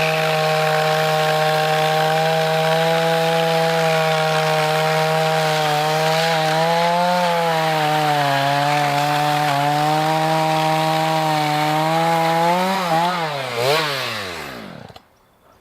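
Small two-stroke chainsaw running at high revs cutting through a firewood log, its pitch dipping briefly under load midway. Near the end it revs once, then is shut off and winds down to a stop.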